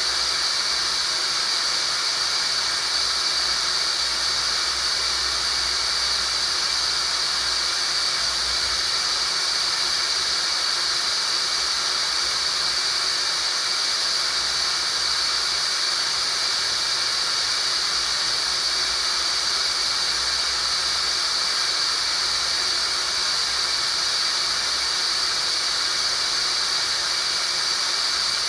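Tinnitus sound-therapy tone at about 4900 Hz: a steady, high-pitched whistling band with a hiss around it, unchanging throughout.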